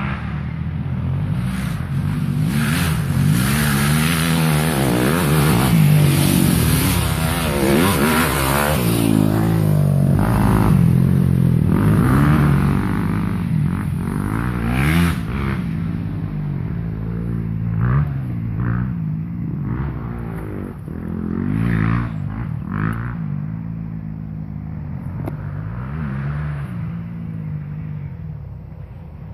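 Motocross dirt bike engines revving up and down under load on a dirt hill climb, loudest through the first half and then fading away. A few sharp knocks come in the later part.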